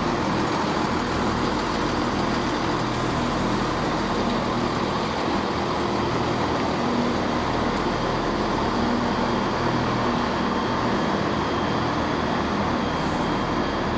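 Diesel engines of ScotRail Class 170 Turbostar trains running steadily, a constant low hum with a wavering drone.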